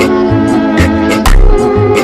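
Background music with a steady beat, a thumping bass and held melodic notes.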